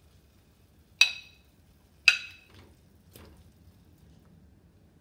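A metal spoon striking the rim of a non-stick frying pan: two sharp clinks about a second apart, then a fainter tap, as fried potatoes are scooped into the gravy.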